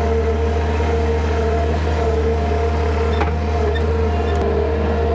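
Engine of a farm vehicle carrying bales, running steadily: a constant low drone with a steady whine above it, and a faint click about three seconds in.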